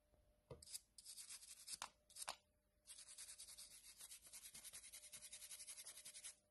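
A small brush scrubbing the printed circuit board of an electric bike charger to clean it. A few short strokes come first, then about three seconds of fast, even back-and-forth scrubbing that stops suddenly near the end.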